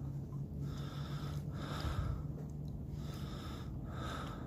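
A person breathing close to the microphone: four breaths in quick succession, about a second apart, over a steady low hum.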